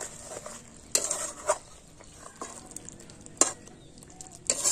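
Metal spatula stirring thick curry in a metal kadai, with about four sharp clinks and scrapes against the pan at uneven intervals.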